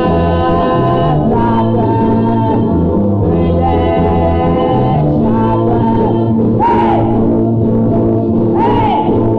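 A 1970s Romanian band song: singing over sustained chords and a steady bass line, with a few short sliding notes near the end.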